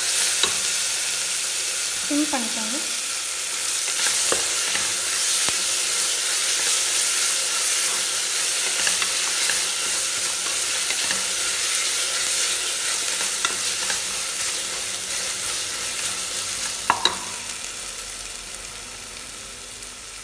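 Onions, slit green chillies and ginger-garlic paste sizzling as they fry in an aluminium pressure cooker, with a spatula scraping and clicking against the pot as they are stirred. The sizzle dies down over the last few seconds.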